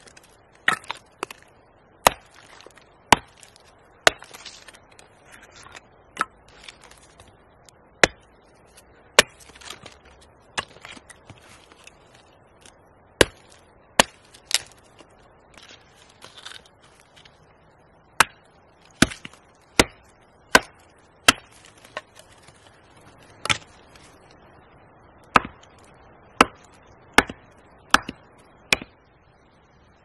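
Hatchet blows splitting sticks held upright on a log into kindling: sharp wooden knocks, mostly about one a second, in runs broken by pauses of a few seconds.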